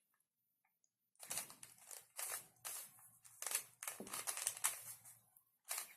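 Plastic Rubik's cube being twisted, its layers clicking and scraping in a quick run of turns starting about a second in, with one more turn near the end.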